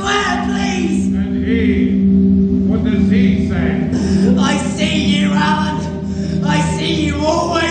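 A group of voices singing wordlessly in chorus, with a held low drone note and wavering voices above it; the drone fades a little past six seconds in.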